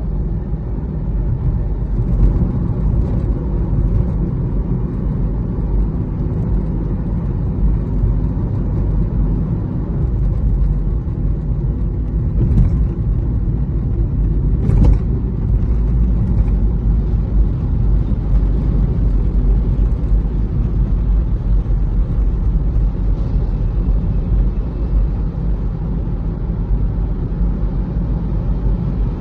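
Steady low rumble of road and engine noise inside a moving Nissan car's cabin, with a few faint clicks, the clearest about 15 seconds in.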